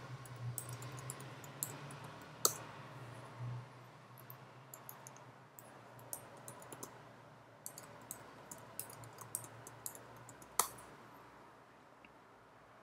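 Computer keyboard keystrokes and mouse clicks, scattered and uneven, with two louder clicks about eight seconds apart.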